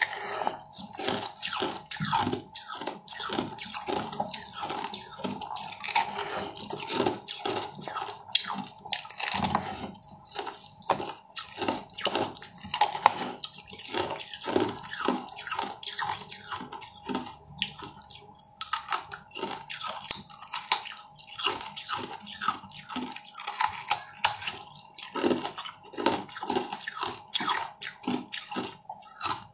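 Close-up eating of a frozen yellow fruit jelly: dense, irregular crackling and wet crunching as the icy jelly is bitten, chewed and squeezed, with squishy, dripping sounds.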